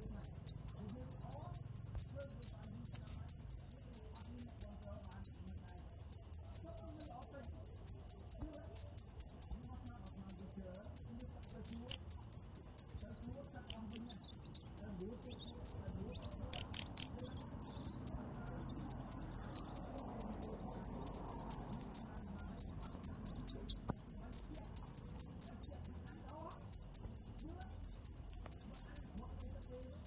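A cricket chirping in a fast, very regular high-pitched pulse, about four chirps a second, with one brief break about eighteen seconds in.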